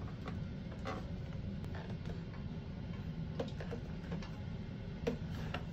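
Scattered light plastic clicks and ticks as a bidet seat is slid onto its mounting plate, over a steady low hum.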